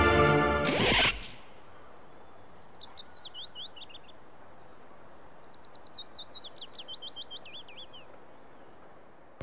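Music cuts off about a second in. After that a bird sings two phrases over a quiet outdoor background, each a quick run of high whistled notes that sweep downward, about four notes a second.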